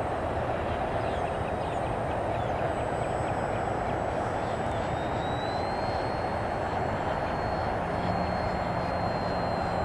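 Durafly 1100mm Corsair electric RC model warbird in flight: the steady drone of its propeller with a thin high motor whine that rises slightly in pitch about halfway through.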